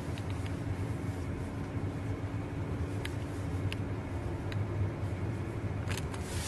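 Steady engine and tyre hum heard inside a vehicle driving on a snow-covered road, with a few light clicks and a brief louder rush of noise just before the end.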